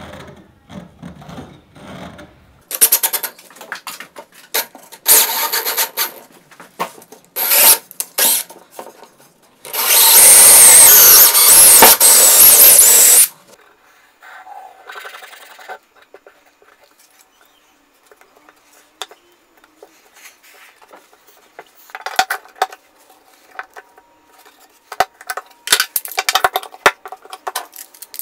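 Woodworking tool noise: a run of short loud bursts, then about three seconds of steady loud power-tool noise, the loudest sound here. Near the end come quick bursts of clicking as one-handed bar clamps are ratcheted down onto a glued plywood frame.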